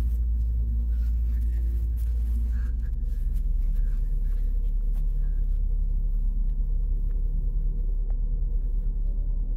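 Deep, steady rumbling drone with a few faint held tones above it, a soundtrack effect rather than a real-world source.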